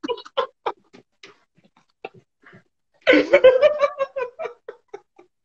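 Two men laughing: short breathy bursts of laughter, then about three seconds in a long, high-pitched squealing laugh that breaks up into short gasps.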